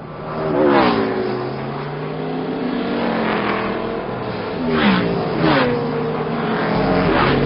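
Race car engine sound effects: cars revving and zooming past several times, the engine pitch dropping as each one goes by.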